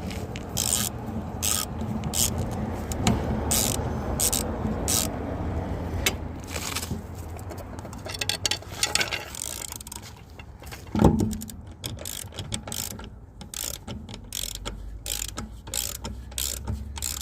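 Hand ratchet clicking in runs as a lug nut is worked onto a wheel stud, with one louder clunk about eleven seconds in.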